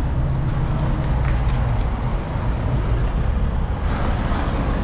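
City street traffic noise: a steady low rumble of cars and engines around a busy intersection.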